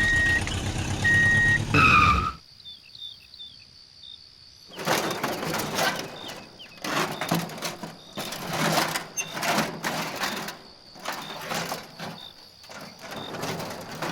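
A vehicle engine running, with two short horn beeps, cuts off suddenly about two seconds in. After a quiet spell, a long series of short, rough, noisy bursts follows, roughly one a second.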